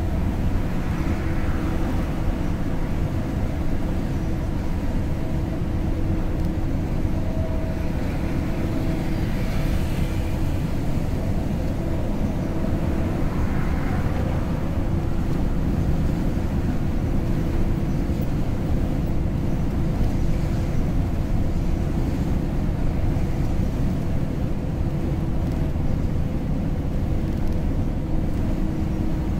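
Steady engine drone and road noise from a vehicle cruising on a highway, with a constant low hum. A few brief swells of rushing noise rise and fall over it.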